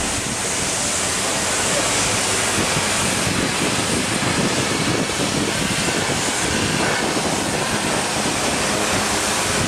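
Steady rushing noise of wind on the microphone, gusting slightly, with no distinct sounds standing out.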